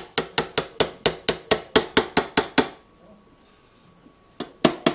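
Fast, even knocks, about five a second, from an upturned ketchup bottle being banged to get the last of the ketchup out into the pot. They stop for about a second and a half past the middle, then start again.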